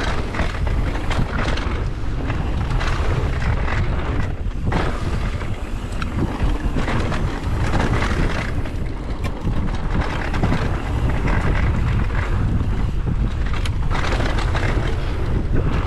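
Heavy wind buffeting on the microphone of a mountain bike riding a dirt trail, over tyre rumble on the dirt, with frequent short rattles and knocks as the bike goes over bumps.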